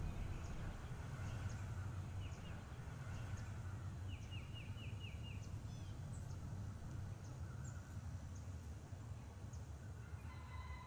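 Rural outdoor ambience: scattered faint bird chirps, with a quick run of about six repeated chirps around the middle, over a steady low rumble.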